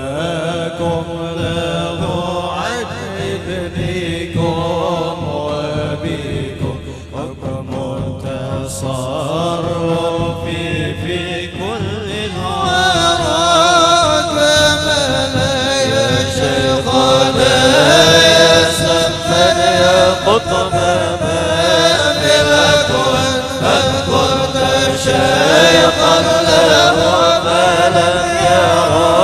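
Voices chanting devotional Arabic verse in a slow, wavering melody. About halfway through the chant grows louder and fuller.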